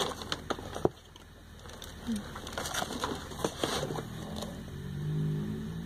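A small cardboard perfume box being handled and set down: a few light taps and knocks. A low, steady hum starts about four and a half seconds in.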